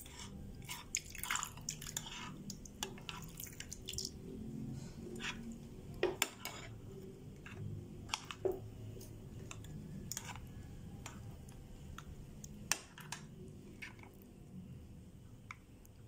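Metal spoon stirring a watery clear-slime mixture in a glass bowl: irregular wet clicks, drips and squelches, with a few louder clicks about six, eight and thirteen seconds in.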